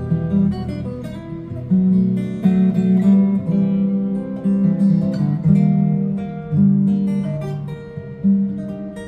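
Acoustic guitar music, plucked and strummed notes with a steady bass line, played back through Sonus Faber Lumina II bookshelf speakers driven by a Hegel H120 amplifier.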